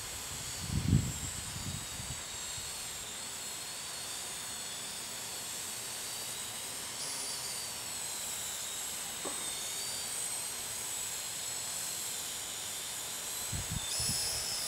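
Parrot UAV's electric motors and propellers whining in flight, heard as a steady stack of high tones that waver and shift upward about halfway through. Gusts of wind rumble on the microphone near the start and end.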